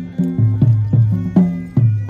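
Traditional Ladakhi dance music: a steady beat of low struck notes, about four a second, each fading quickly, with a thin high note held over them.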